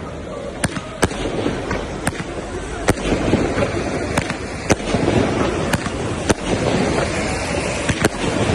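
Fireworks going off with sharp cracks at irregular intervals, roughly one a second, over a steady din of voices.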